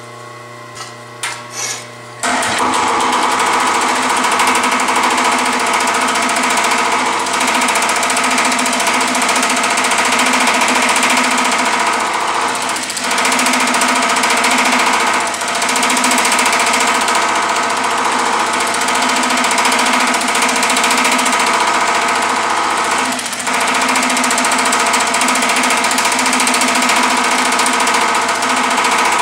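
Power hammer with shrinking dies: the motor runs for about two seconds, then the ram starts hammering rapidly and keeps pounding steadily, with a few brief lulls.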